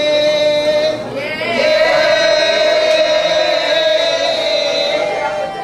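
A woman ululating in celebration into a handheld microphone: two long, high held calls, the first breaking off about a second in and the second running about three seconds.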